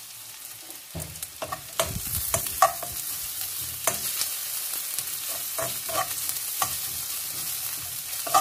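Sliced onions and garlic sizzling as they fry in butter in a wok. From about a second in, a metal slotted spoon stirs them, scraping and clinking against the pan again and again.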